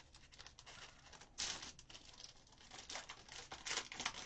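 Faint, irregular light tapping and rustling of hands working at a desk, a little louder about a second and a half in and again near the end.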